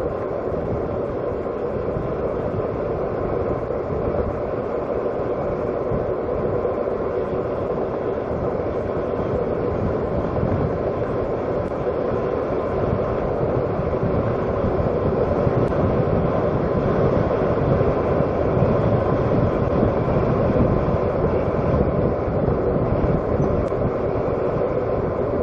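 A vehicle running steadily, a continuous rumble that grows somewhat louder past the middle and eases again near the end.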